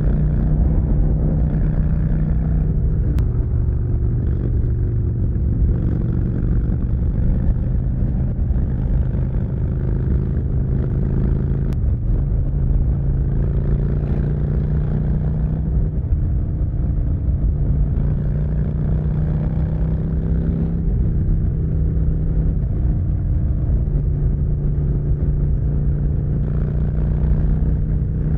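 Harley-Davidson V-twin engine running through an aftermarket exhaust at a steady highway cruise, a loud, even drone with small rises and dips in pitch.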